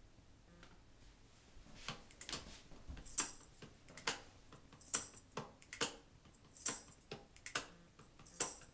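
A run of sharp clicks or ticks, roughly two a second, beginning about two seconds in.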